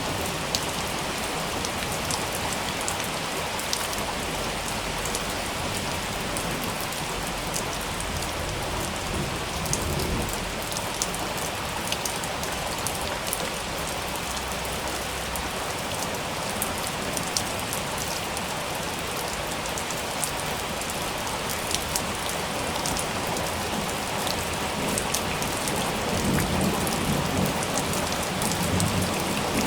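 Steady heavy rain falling on a hard surface, with many sharp, separate drop ticks close by. Low thunder rumbles swell under it about a third of the way in and again near the end.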